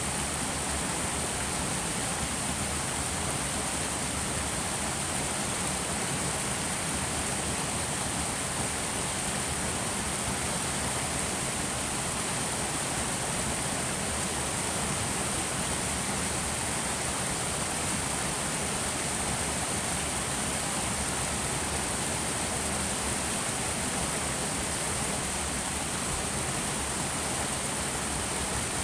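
Creek water rushing steadily over a low rocky cascade, an even, unbroken rush.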